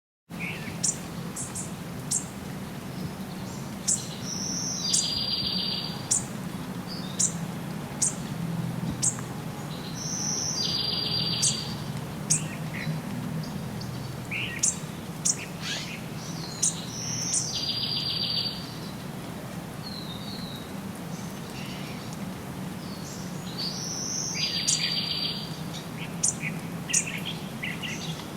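Several songbirds chirping and calling, with one bird repeating a buzzy song phrase of about a second four times, roughly every six seconds. Under them runs a steady low rumble.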